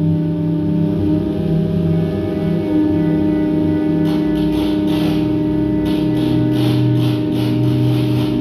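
Ambient music of layered, sustained drone tones. About halfway in, a series of short hissy pulses joins the drone.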